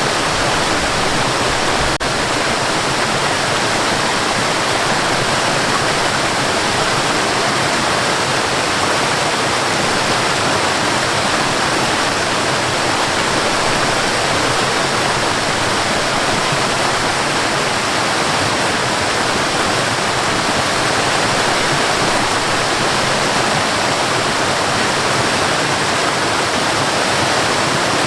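Waterfall falling from a high drop, a steady, unbroken rush of water.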